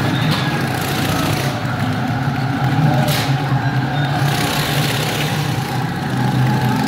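Motorcycle engine running steadily at speed as it circles the vertical wooden wall of a Wall of Death drum.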